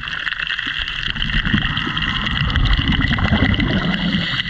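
Muffled underwater noise picked up by a submerged camera: a steady high hum with a low rumble that swells about a second in and eases near the end.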